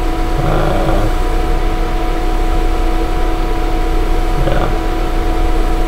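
Steady background hum with hiss and a few fixed tones, with two brief low vocal sounds from a man, about half a second in and again near the end.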